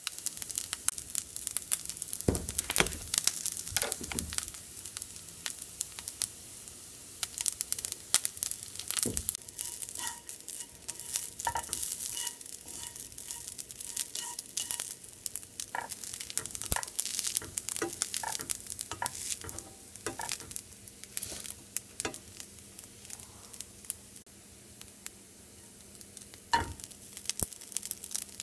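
Rice and shredded pork frying in a nonstick pan: a steady sizzle, with chopsticks and a spatula stirring and scraping the pan in frequent clicks and taps.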